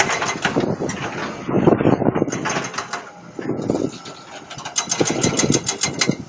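Mitsubishi Fuso dump truck's diesel engine running unevenly as the truck reverses, with surges in level and a run of rapid clattering clicks in the second half.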